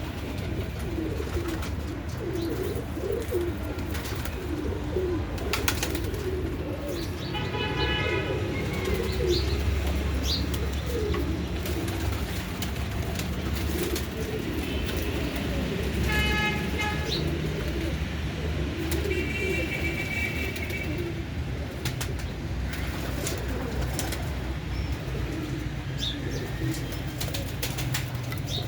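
Several domestic pigeons cooing continuously in a low, wavering murmur, with scattered sharp clicks over it. Two short, higher pitched calls stand out, about eight and sixteen seconds in.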